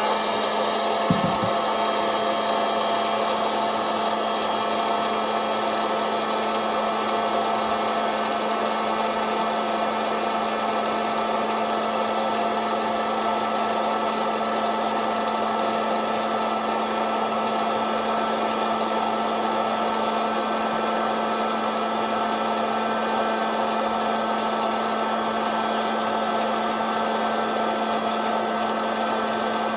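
Electric hot-air popcorn popper's fan motor running with a steady hum, with a couple of short clicks about a second in.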